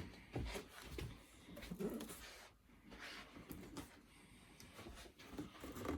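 Faint scattered knocks and rustles of a cardboard box being handled and examined.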